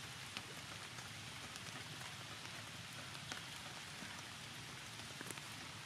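Steady light rain falling, with scattered sharper drips.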